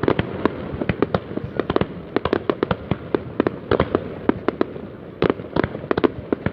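Fireworks going off: a dense, irregular run of bangs, some close and sharp, others distant and echoing, over a constant crackle.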